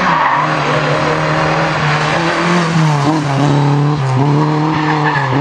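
Rally car engine running hard, its pitch climbing and dropping several times as it changes gear and lifts off.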